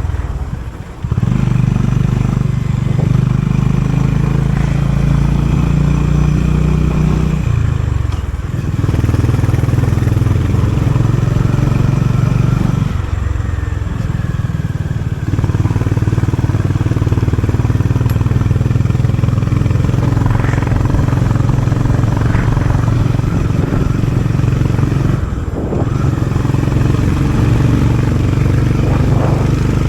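Honda CB350RS single-cylinder engine through its stock exhaust, pulling steadily while riding, with brief dips as the throttle is eased about a second in, around eight seconds, around thirteen to fifteen seconds and near twenty-five seconds.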